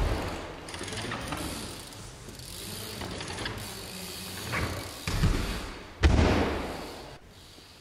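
BMX bike rolling and coasting on skatepark ramps, the rear hub's freewheel ratchet clicking. There is a short burst about five seconds in and a heavy thud about a second later.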